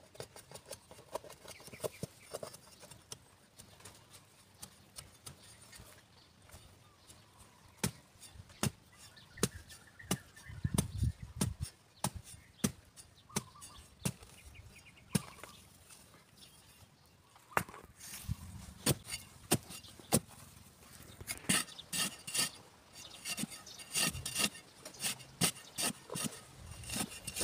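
Long metal digging bar with a scoop end being driven into dry, hard soil: a run of separate sharp strikes and scrapes as a hole is dug. The strikes come closer together and heavier in the last few seconds.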